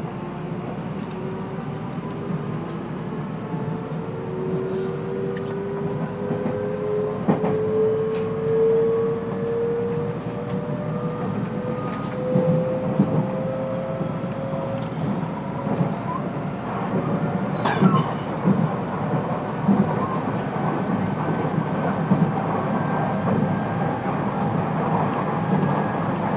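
Inside a JR West 223 series 5000 subseries electric train: the traction motors whine in several tones that rise slowly in pitch as the train picks up speed, over a growing running rumble. A few sharp clacks of the wheels over rail joints come in the second half.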